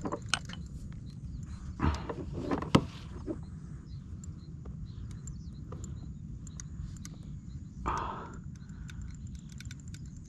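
Wind buffeting the microphone, with scattered clicks and knocks from the fishing rod and reel being worked against a hooked fish. There are a couple of louder knocks about two to three seconds in and a short rush of noise near eight seconds.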